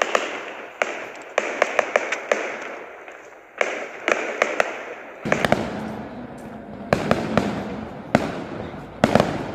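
Aerial fireworks bursting overhead: repeated sharp bangs, sometimes several in quick succession, with crackling between them.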